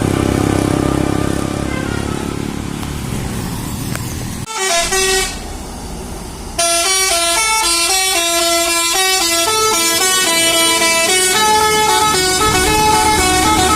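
Bus telolet basuri melody horn playing a tune of quick stepped notes. There is a short burst of notes at about four and a half seconds, and the full tune starts about two seconds later. Before that there is a steady rumble of the running vehicle.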